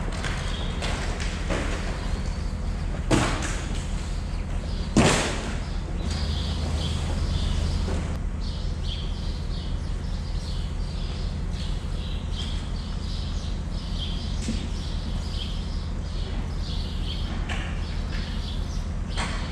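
Two sharp thuds about two seconds apart over a steady low hum, followed by a run of short, high, repeated chirps.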